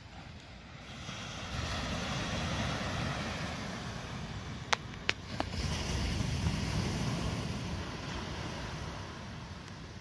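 Ocean surf breaking and washing on the beach. It swells about a second and a half in and eases off toward the end, over a low rumble of wind on the microphone. Three sharp clicks come in quick succession near the middle and are the loudest sounds.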